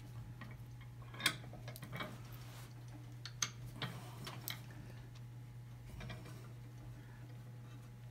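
Scattered light clicks and knocks of hands working the metal screw clamps on a glued-up wooden block, the sharpest about a second in, over a steady low hum.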